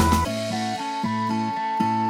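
Background music: a melody over plucked guitar chords, the drums dropping out a moment in.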